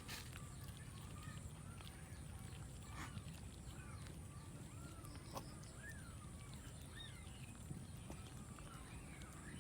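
Cats giving short, faint mews over and over, each call rising and falling in pitch, with a few soft clicks between them.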